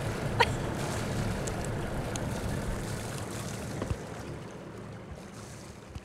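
Wind and water noise on the deck of a catamaran under way, over a low steady hum, fading out toward the end. A short rising squeak sounds about half a second in.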